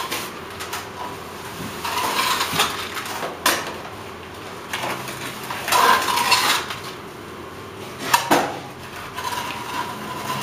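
Steel plastering trowel working wet cement against a straightedge rod to fill a corner: several scraping strokes with metallic clinks, and two sharp knocks about three and a half and eight seconds in.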